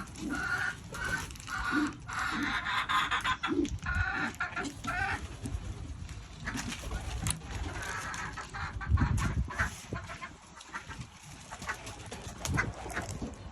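Domestic hens clucking: a quick run of repeated calls over the first few seconds, then scattered clucks and clicks. There is a low bump about nine seconds in.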